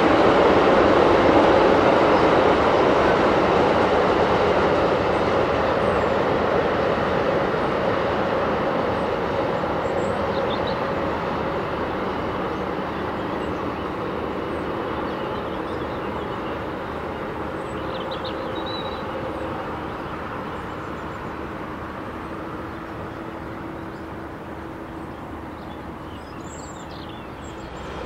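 Long freight train of double-deck car-carrier wagons rolling along the line, a steady noise of wheels on rail that fades gradually as the train moves away.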